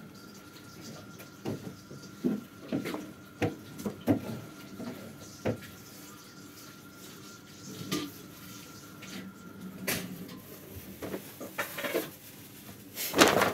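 Paper bag crinkling and rustling as a cat moves at and around it, in scattered soft taps and short rustles, with one loud crinkle near the end. A faint steady high whine runs beneath until about two-thirds of the way through.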